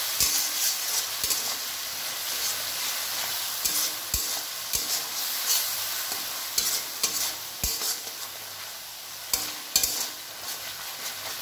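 A flat metal spatula stirring and scraping a thick mustard and green-chilli paste frying in mustard oil in a kadai, over a steady sizzle, with irregular clicks of the spatula against the pan. The spice paste is being sautéed (kosha) until it cooks down.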